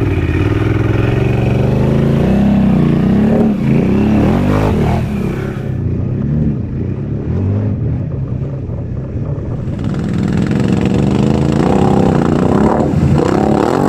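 Can-Am Outlander ATV's V-twin engine revving up and down under load, its pitch rising and falling repeatedly, as it pushes through a deep muddy water crossing.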